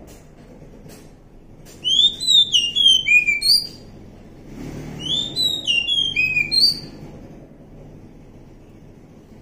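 Oriental magpie-robin singing: two phrases of quick, slurred whistled notes, the first about two seconds in and the second about a second after it ends, over a faint low background rumble.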